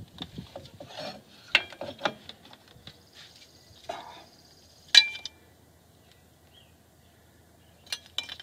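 Metallic clicks and clinks of steel brake hardware being handled as a new rear drum brake shoe and its spring are fitted against the backing plate. The loudest is a sharp metal click about five seconds in that rings briefly. Two more clicks come near the end.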